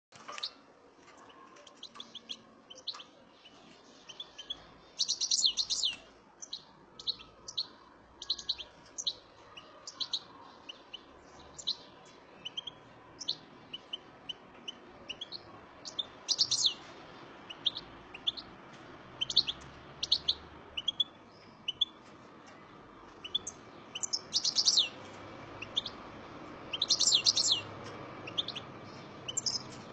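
Caged European goldfinch singing: a run of quick, high chirps and twitters broken by several louder trilled bursts, the longest about five, sixteen, twenty-four and twenty-seven seconds in.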